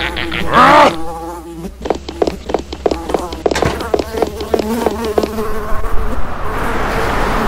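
Cartoon fly buzzing sound effect, its pitch wavering up and down, breaking after a couple of seconds into a string of short buzzes. From about five and a half seconds in, a steady rush of noise rises beneath it.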